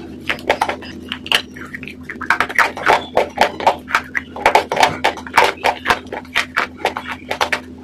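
Close-miked crunching and chewing of crisp food: a rapid run of sharp crackles and crunches, denser from about two seconds in, over a steady low hum.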